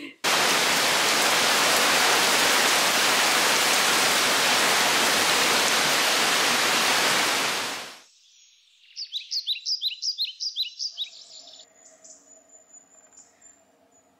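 A loud, steady rushing hiss that fades out after about eight seconds. Then a bird sings a quick run of repeated high chirps, about four a second, for a couple of seconds, leaving faint steady hums behind.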